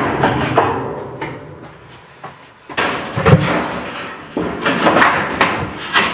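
A corrugated metal sheathing panel rattling as it is handled. It knocks against the wall framing with a loud thud about three seconds in, then rattles and knocks again as it is pushed into place.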